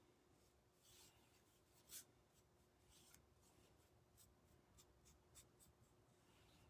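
Faint brushing of a paintbrush laying paint onto a wooden piece: a string of soft, irregular scratchy strokes, one a little louder about two seconds in.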